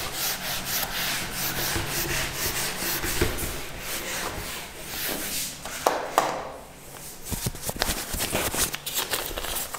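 Whiteboard eraser wiped quickly back and forth across the board, a steady run of scrubbing strokes that stops about six seconds in, followed by a few light taps.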